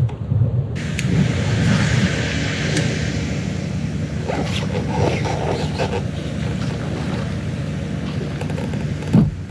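Wind buffeting the microphone as a steady low rumble, over rippling water, with a few short clicks.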